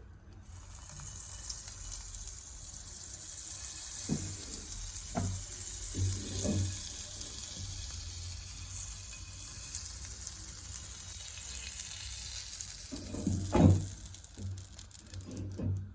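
Pancake batter sizzling steadily in a hot pan, with a few soft knocks of a utensil against the pan, the loudest near the end.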